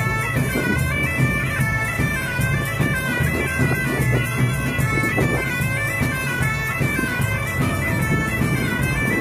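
Bagpipe music: a melody stepping up and down over a steady low drone.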